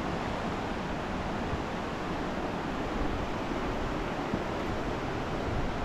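Steady rushing of the Shumak, a fast mountain river.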